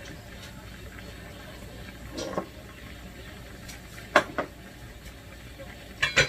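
Cookware clatter at a gas stove: a utensil or pan knocks against the cookware about two seconds in, twice in quick succession around four seconds, and twice more near the end, over a steady hiss from the stove.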